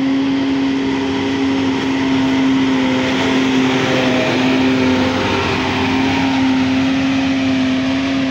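Large tour bus driving slowly past at close range, its engine a steady drone, with the noise swelling a little as it goes by about halfway through.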